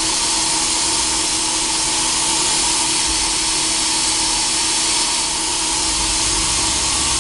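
CNC vertical milling machine running its automatic tool-length measuring cycle, the head moving the tool onto the tool setter: a steady hiss with a steady hum underneath.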